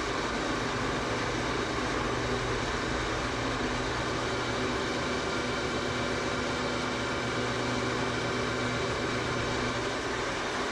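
Metal lathe running steadily, its headstock gears giving a constant whine, while a WNMG carbide turning insert takes a light finishing cut on the round-stock workpiece.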